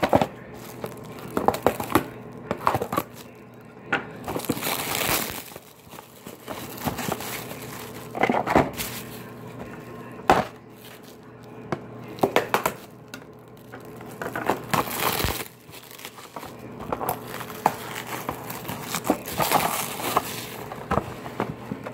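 Plastic shrink wrap being torn and peeled off cardboard trading-card boxes, crinkling and crackling in irregular bursts with sharp clicks as the wrap is pulled and crumpled.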